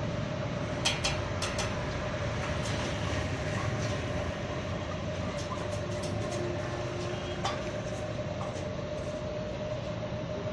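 Stick (arc) welding on a pipe across a gap: the arc hissing and crackling steadily with scattered sharp pops, over a constant hum.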